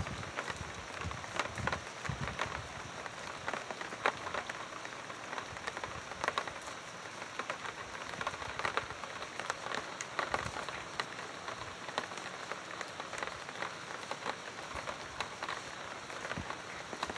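Steady rain falling, with many separate drops ticking sharply on a hard surface over an even hiss.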